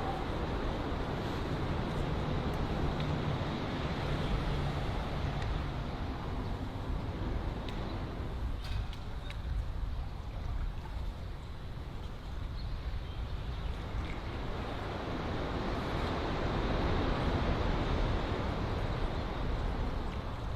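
Steady rushing noise of wind on the microphone, strongest in the low end. It eases off about halfway through and builds up again later.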